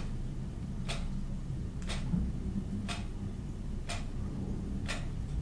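Clock ticking steadily, one tick a second, over a low steady hum.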